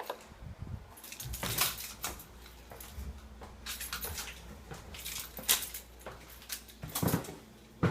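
Footsteps walking through a room, a series of short, sharp steps and light thuds roughly one a second.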